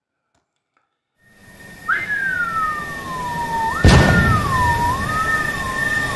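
Logo-reveal sound effect: after about a second of silence, a rising hiss brings in a wavering, slowly falling whistle-like tone over a steady high tone, with a sharp hit and deep boom about four seconds in.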